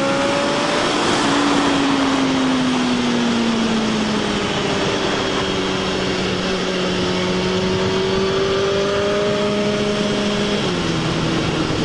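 Suzuki GSX-R motorcycle engine running on the road under heavy wind rush. The engine note steps up about a second in and sinks slowly over the next few seconds, then drops suddenly near the end at a gear change.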